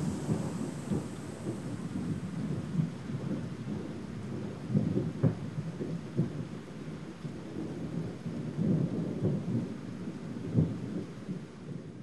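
Irregular dull thumps and knocks of wooden boards being fitted and knocked against a door, over a steady low rumble.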